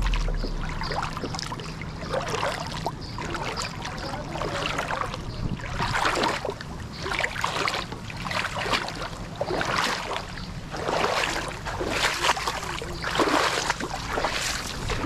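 Lake water sloshing and splashing in irregular surges, with a faint steady low hum underneath.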